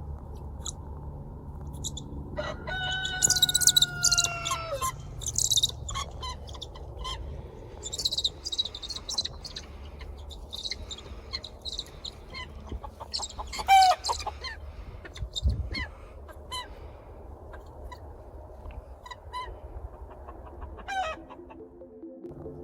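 A rooster crowing once, a long call of about two seconds starting a couple of seconds in, among scattered short clucks and high bird chirps. A low steady hum runs underneath for the first few seconds.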